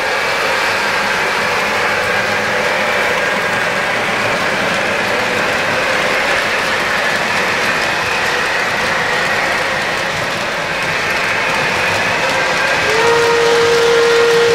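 Lionel O-gauge model train running on three-rail track: a steady running rumble with a faint high whine. About a second before the end, a train whistle starts sounding and holds.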